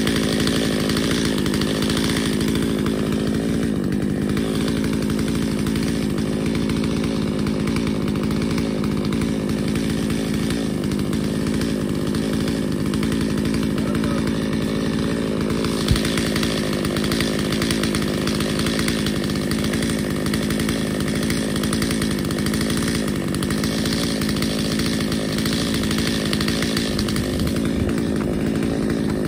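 Chainsaw running steadily, noodling a large flat sycamore round (ripping along the grain) into firewood slabs. One sharp click comes about halfway through.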